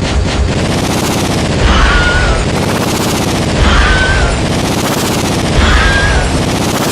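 Loud, heavily distorted battle noise like rapid gunfire, with a warbling sweep and a short high tone that both come back about every two seconds.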